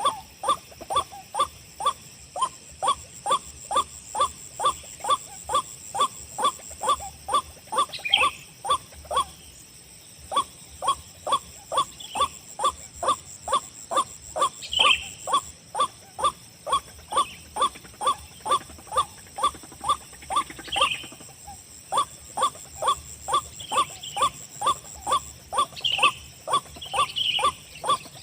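White-breasted waterhen (ruak-ruak) call played over and over from a bird-lure player: a steady run of short, clipped notes about two a second, breaking off briefly twice. A few higher, fainter calls come in over it now and then.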